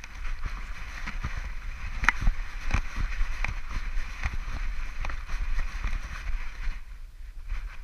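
Handling noise from a camera strapped to a dog's back: irregular knocks and rustling as the dog moves, over a low rumble.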